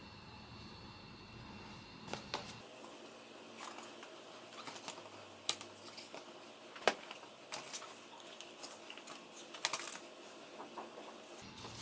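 A small cardboard blind box and its paper insert card handled by hand: scattered taps, clicks and paper rustles, beginning about two seconds in, with one sharper tap near the middle.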